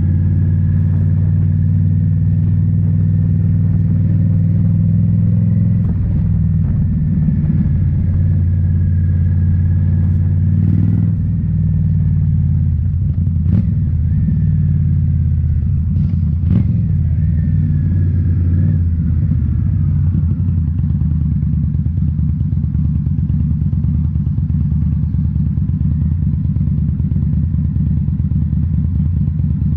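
2018 Indian Scout Bobber's V-twin running through Rinehart slip-on mufflers while riding, a loud low exhaust note. The note changes about six seconds in and again around eleven seconds as engine speed shifts, with two sharp clicks near the middle.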